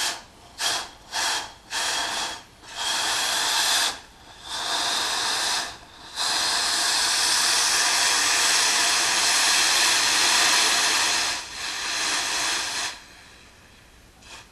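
Freshly silver-soldered copper model boiler being quenched while still hot: steam hisses in a run of bursts that grow longer, from short spurts to one of about five seconds, after a sharp knock at the very start.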